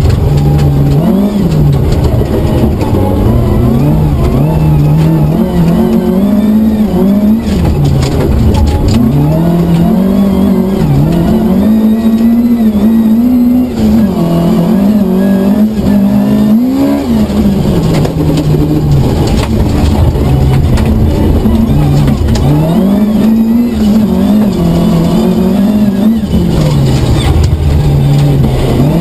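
Rally car engine heard from inside the cockpit, driven hard: the revs climb and drop over and over through gear changes and lifts. A few sharp knocks come through the body along the way.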